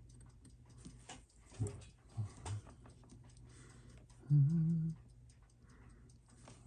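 Faint, steady ticking of a clock in a small room. Over it come a few short, low hums from a person, and a longer hummed note that steps up in pitch about four seconds in, the loudest sound.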